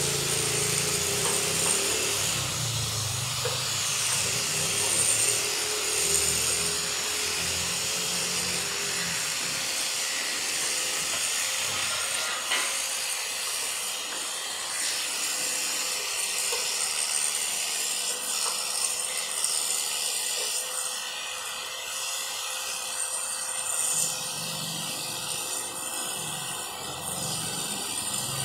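Steady rasping, scraping noise of hand-tool work on a stuck nut and bolt on a metal frame.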